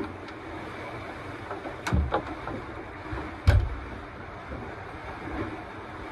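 Steady wind noise on the microphone, with two handling knocks about two seconds and three and a half seconds in, the second the louder, and a few faint ticks, from hands working with test probes at a personal watercraft's battery.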